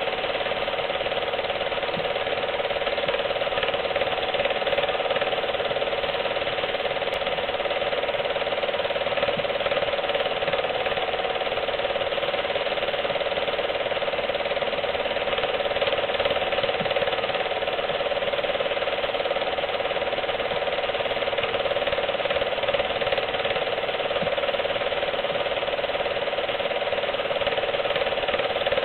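Home-movie film projector running steadily, its shutter and claw mechanism clattering evenly as the film goes through the gate.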